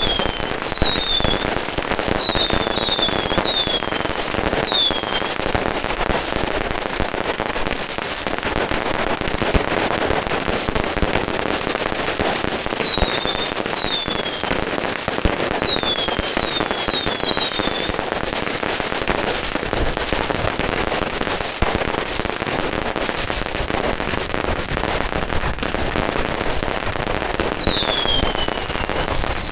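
Firecrackers crackling in a dense continuous stream, with clusters of short, falling whistles from whistling fireworks near the start, in the middle and near the end.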